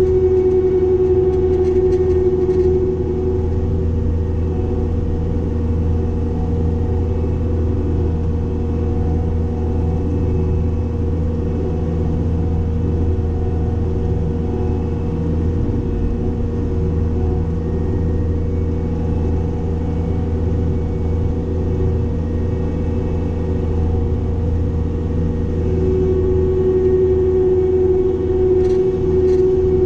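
Cat 262D skid steer's diesel engine running steadily under load while driving a Loflin brush cutter. A steady whine rides over the engine, strong for the first few seconds, fading, and coming back about 26 seconds in.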